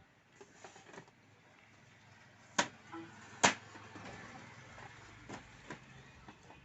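Epson L3150 inkjet printer starting up with a fault. There are light clicks, then two sharp knocks about a second apart as the print head carriage moves fast and stops with a noise, followed by a faint mechanism hum and a few more clicks. The fault is one the repairer puts down to the head sensor flex cable.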